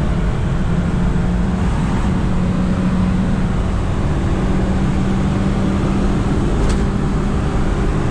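Fiat Uno 70S's 1.4-litre four-cylinder engine running steadily at cruising speed, heard inside the cabin with its droning note over low road and tyre rumble. One light click about two-thirds of the way through.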